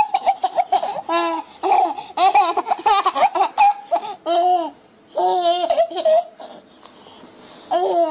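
A baby laughing in repeated high-pitched bursts, pausing for about a second and a half before a short laugh again at the very end.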